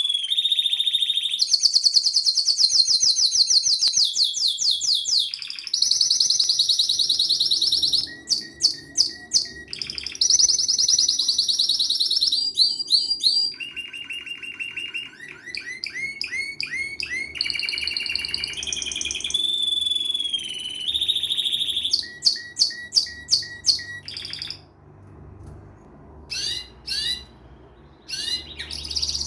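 Domestic canary singing a long, varied song of phrases that change every second or two: fast trills, rapid repeated notes and clear whistled tones. Near the end the song breaks off into a few separate chirps before picking up again.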